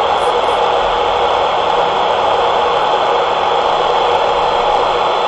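CB radio receiving an empty channel with its noise blankers off: steady static hiss from the speaker, with no station coming through.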